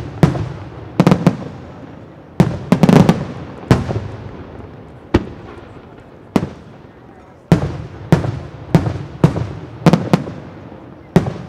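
Aerial fireworks going off: an irregular series of a dozen or more sharp bangs, each trailing off in an echo, with a quick cluster of several reports about three seconds in.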